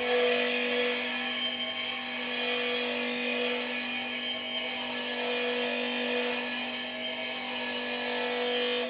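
Heiniger shearing grinder's motor running with a steady hum while a steel shearing comb is pressed firmly against the spinning abrasive paper disc, a continuous harsh grinding hiss of metal being resharpened. It cuts off suddenly at the end.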